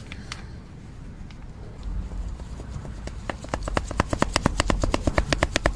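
Worn front stabilizer link (anti-roll bar drop link) from an Opel Astra J worked back and forth by hand, its loose ball joint knocking in a rapid even clatter of about nine clicks a second. The clatter starts two to three seconds in and grows louder. This play is what makes the car bang over bumps.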